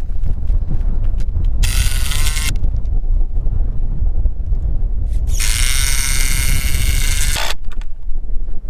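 A handheld power tool runs in two bursts, a short one about two seconds in and a longer one of about two seconds from about five seconds in, as the end of a wooden fence-brace rail is fastened to its post. Steady wind buffets the microphone throughout.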